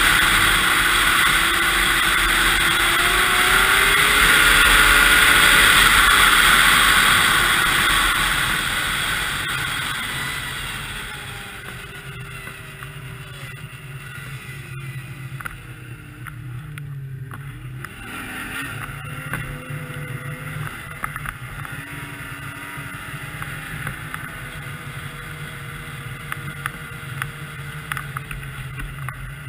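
2002 Yamaha SX Viper 700 snowmobile's three-cylinder two-stroke engine and track, riding fast with a loud rush of wind and snow noise at first. After about eight seconds it slows, the engine note falling to its lowest about halfway through. It then picks up again and runs on steadily at a lower speed.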